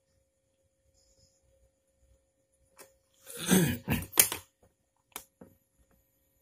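Handling noise: about three seconds in, a second-long rubbing scrape with a falling pitch, then a few sharp knocks. A faint steady hum runs underneath.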